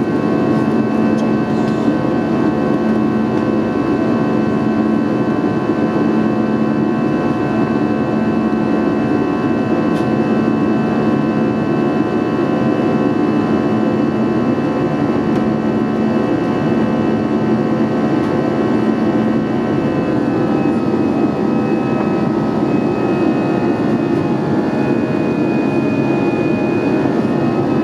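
Airbus A320 engines and airflow heard from inside the passenger cabin: a steady rushing noise with several steady whining tones. About twenty seconds in, some of the higher tones shift and a new one appears.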